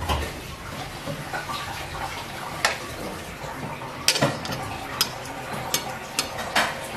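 Utensils clinking against dishes: several sharp, irregularly spaced clinks and taps over a low, steady background.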